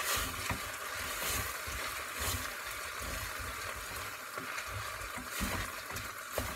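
Pasta sizzling in butter and sunflower oil in a stainless steel pot on a gas hob as it is stirred, a steady sizzle with irregular light stirring knocks.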